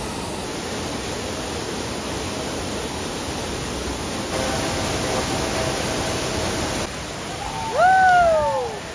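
Waterfall plunging into a pool, a steady loud rush of falling water. Faint voices come through in the middle, and near the end a person's loud call rises and then falls in pitch.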